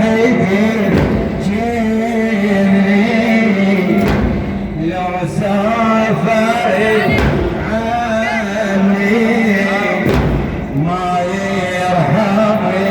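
Male voice chanting a melismatic Arabic religious recitation in long ornamented phrases, with a heavy thud about every three seconds.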